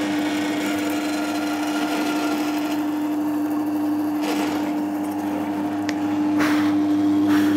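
Drill press motor running with a steady hum while a hollow-chisel mortising bit, an auger turning inside a square chisel, is plunged into a softwood beam to cut a square hole. Two short rasping bursts come near the end.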